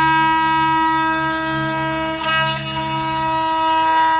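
Oscillating multitool running and cutting into maple stair nosing: a steady, even, horn-like buzz with a lower hum underneath that fades out about three and a half seconds in.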